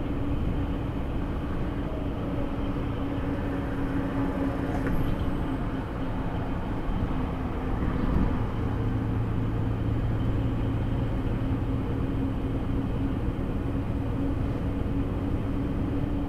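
Steady engine and road noise heard inside a vehicle's cab while driving at motorway speed, with a constant low drone. A second, lower hum comes in about halfway through for a few seconds.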